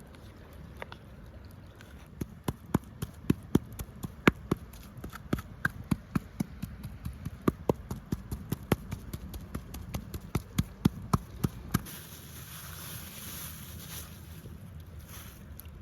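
A quick, irregular series of sharp taps or knocks, two to four a second, over a low steady rumble; they stop about twelve seconds in, and a brief high hiss follows.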